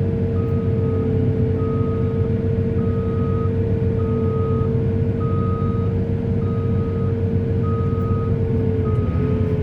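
Heavy earthmoving machine's diesel engine running with a steady whine over its low rumble, while a reversing alarm beeps at an even pace, about eight beeps a little over a second apart.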